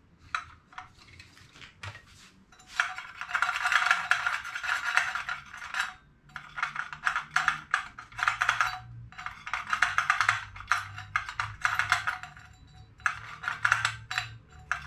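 Rapid clicking and rattling in four or five bursts of one to two seconds each, made by a tool working on the hard plastic and metal parts of a vacuum cleaner as it is taken apart.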